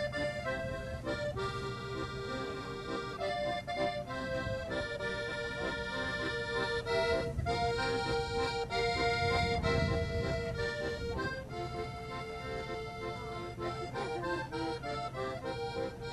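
Piano accordion playing a melody over long held chords.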